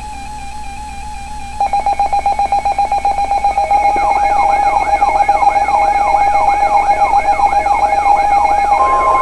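Layered electronic alert tones. A warbling tone is joined by a rapid pulsing beep, then by rising siren-like whoops about twice a second, growing louder, and a steady high tone enters near the end.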